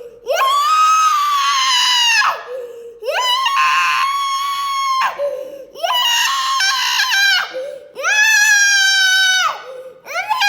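A child screaming in distress while being held for medical treatment. There are five long, high-pitched screams of about two seconds each, with short gasping in-breaths between them; the last one starts near the end.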